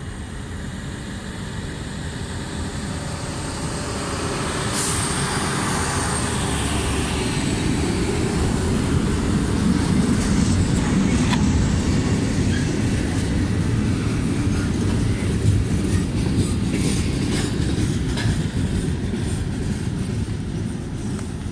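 Ferromex hi-rail Freightliner truck with Brandt road-rail gear pulling four hopper cars past on the rails. The steady rumble of the truck and the steel wheels builds to its loudest about halfway through, then eases as the cars roll away. Clicks and knocks of the wheels come in the second half, and a brief high squeal about five seconds in.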